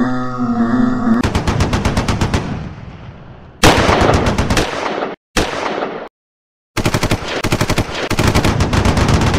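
Sound-effect machine-gun fire: rapid bursts of automatic fire, several in a row with short silent gaps between them. A short low held tone comes first, in about the first second.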